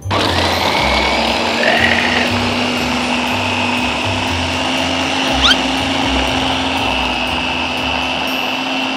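Mitochiba six-blade electric food chopper switching on abruptly and running steadily, its motor hum creeping slightly up in pitch, as it chops whole large red chillies into a fine paste.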